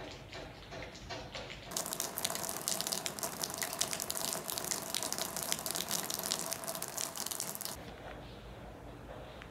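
Rainwater falling from the roof and splashing down outside an open door: a loud, dense crackling spatter that starts about two seconds in and stops abruptly near the end, leaving quiet indoor room tone.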